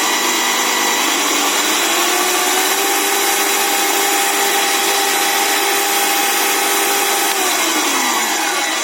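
Zubr benchtop drill press running on its first speed range as its speed is turned up: the motor's whine rises in pitch about two seconds in, holds steady, then falls away near the end.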